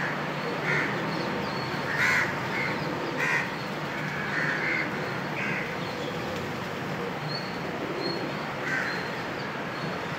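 Crows cawing: a scattered series of short, harsh caws, the loudest about two seconds in, over a steady background hum.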